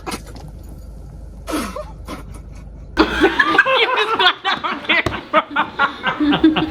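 People laughing: after a brief falling vocal sound about a second and a half in, a burst of rapid, broken laughter starts about halfway through and keeps going.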